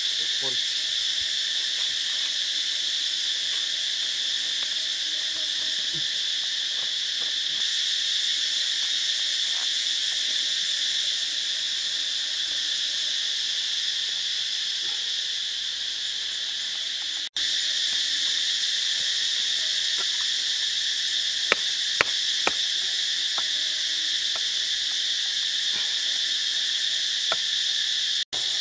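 Steady, dense chorus of insects shrilling without pause, with a few light taps in the second half. The chorus drops out for an instant twice.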